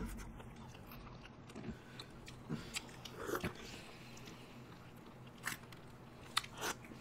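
Faint ice cream eating sounds: scattered bites, lip smacks and chewing from people eating ice cream bars and cups.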